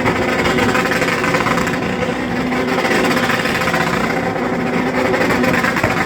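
Sport motorcycle engine running loudly at sustained high revs, its pitch wavering slightly.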